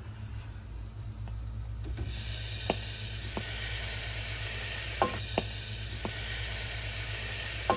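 Raw pork chunks sizzling as they go into hot oil with fried onion, garlic and ginger. The sizzle grows louder about two seconds in, and a spatula knocks against the bowl and pot about five times, over a steady low hum.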